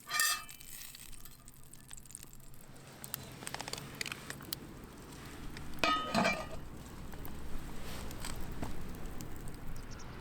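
Metal cooking utensils clinking against a griddle: a short ringing clink at the start and a louder one about six seconds in, with scattered small clicks and crackles between.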